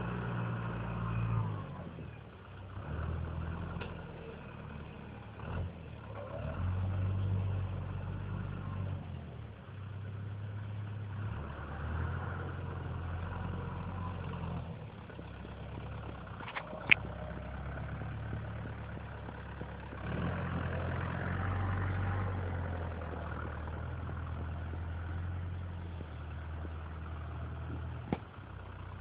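A tractor's diesel engine runs while working in deep snow, its level and pitch rising and falling with throttle and load. There is a sharp clank about seventeen seconds in and another near the end.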